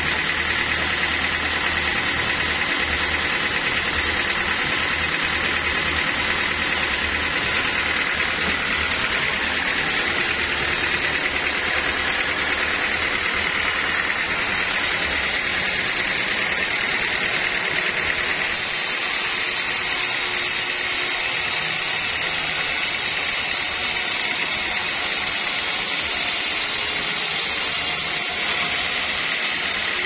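A band sawmill running steadily, its blade cutting lengthwise through a teak log.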